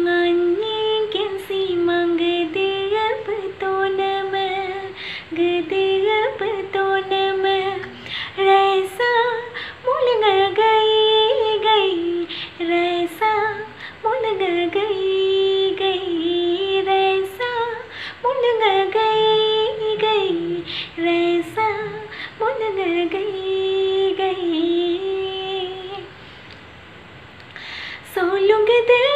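A woman singing solo and unaccompanied, a flowing melody of held notes and short gliding phrases. She breaks off briefly near the end, then starts a new rising phrase.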